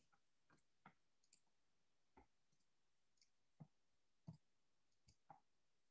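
Faint, separate clicks of a computer mouse, several spaced irregularly about a second apart, in otherwise near silence.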